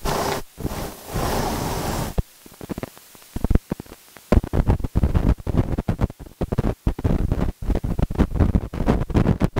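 Hiss and choppy crackling from a Kongin KM-208 budget wireless microphone link, the signal cutting in and out rapidly from about four seconds in as reception fails. The receiver's antenna wire is still wrapped up, weakening the link.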